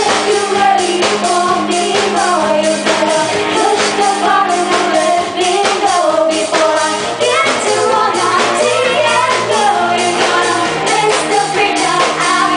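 Live band playing a pop song: a woman sings the lead line over drums and guitar.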